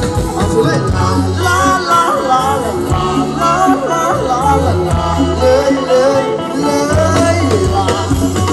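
Thai ramwong dance music played by a live band: a singer's voice over a steady bass line.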